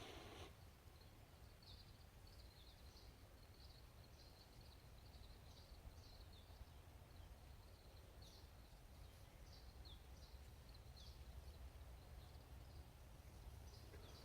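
Faint outdoor quiet with a small bird chirping over and over in short, high notes that slide slightly downward, above a low steady rumble.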